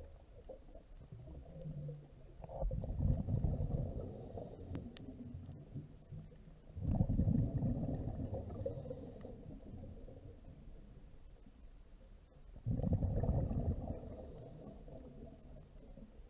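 A scuba diver's exhaled bubbles rumbling underwater: three surges, four to six seconds apart, each starting suddenly and fading over a second or two.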